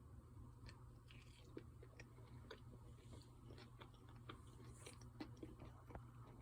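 Close-up chewing of a crispy, crunchy potato wedge: faint, irregular crunching and mouth clicks.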